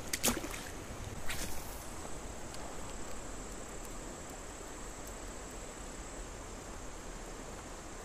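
A small smallmouth bass splashes into shallow river water as it is released, with a second short splash about a second later. Then there is a steady, even rush of flowing river water.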